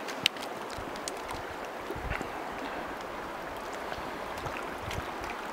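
Mountain river rushing steadily over its stony bed, with a few faint clicks.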